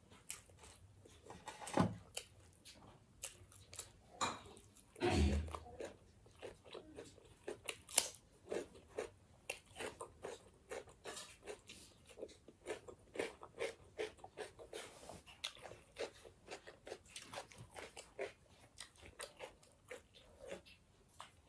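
A person chewing and biting food close to the microphone, with crunchy bites of raw cucumber among mouthfuls of rice and curry. Two louder knocks come about 2 and 5 seconds in.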